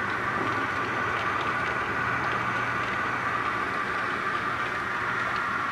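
Model railway train running on the layout: a steady electric motor whir over a low hum, with faint occasional clicks.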